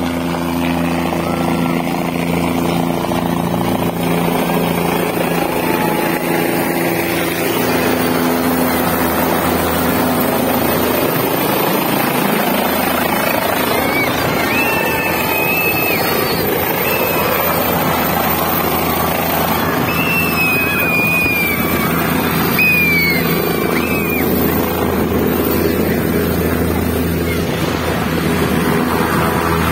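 Light skid helicopter coming in to land: its rotor and engine run steadily, with a rushing wash of air that grows as it nears the ground and settles.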